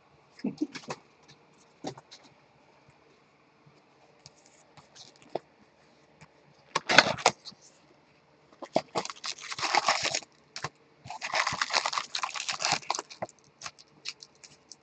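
Hands handling baseball card packs and their wrappers: scattered light taps and clicks, a sharper knock about seven seconds in, then two spells of crinkling and rustling.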